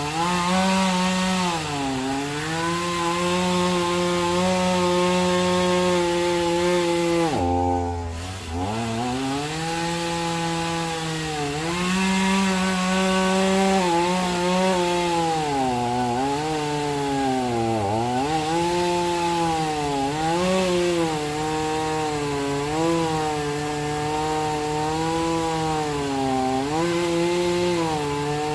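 Chainsaw cutting through the root ball of an uprooted oak tree. Its pitch dips again and again as the chain bogs down in the wood, then picks back up. About eight seconds in it falls almost to idle and revs back up.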